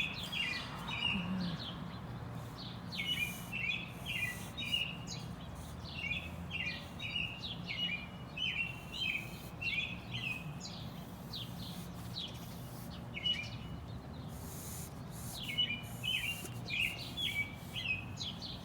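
American robin singing: runs of short clear notes, each sliding down in pitch, repeated in phrases with short pauses between them.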